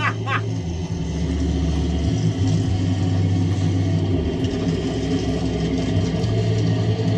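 A running motor with a steady low rumble.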